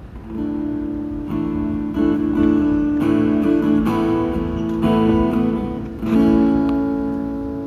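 Acoustic guitar played alone, chords strummed about once a second. The last chord, struck a little after six seconds in, is left to ring out, ending the song.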